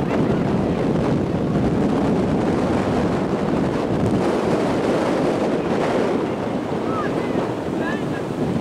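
Wind buffeting the microphone: a loud, steady rushing rumble, with a few faint distant calls near the end.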